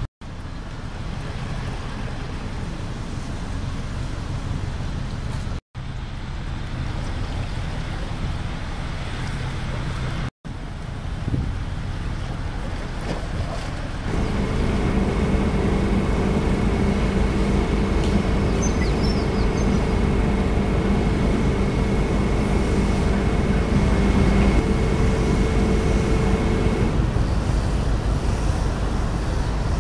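Steady wind and harbour-water noise. From about halfway, a steady low hum of several held tones from the cruise ship Braemar's running machinery joins in for about thirteen seconds, then stops.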